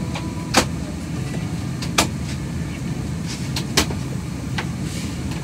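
Steady low rumble of an airliner cabin on the ground, with a few sharp clicks a second or two apart.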